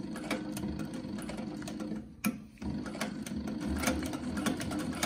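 SEWPRO 266 extra-heavy-duty zig-zag sewing machine stitching through red webbing: a regular rhythm of needle strokes over the hum of the machine. It stops for about half a second a little after two seconds in, then sews on.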